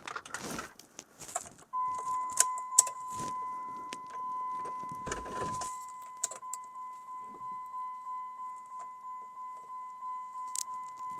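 Keys jingle and a few sharp clicks sound as the ignition is tried. Then, about two seconds in, a steady, high-pitched electronic warning tone from the vehicle comes on and keeps sounding, pulsing slightly in loudness.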